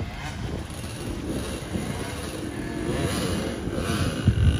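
Dirt bike engines running on the race course, rising in pitch about three seconds in, mixed with wind on the microphone. There is a low thump near the end.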